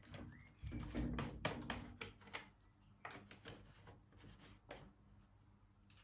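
Small parts being handled by hand during reassembly: a series of light clicks and taps, busiest about one to two and a half seconds in.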